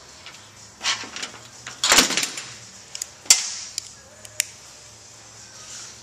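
Handling noise from work on a car power-seat frame: a scraping clatter about two seconds in, then a sharp metallic click and a few lighter clicks as tools and parts are moved and set against the metal frame.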